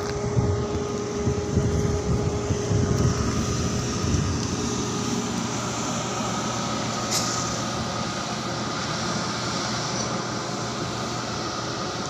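Crawler bulldozer's diesel engine running, louder in the first few seconds, over a steady hum of ship's deck machinery with a faint constant whine.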